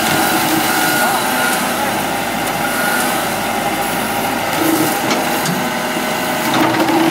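Heavy diesel machinery engine running steadily, with a backup alarm beeping a few times in the first three seconds.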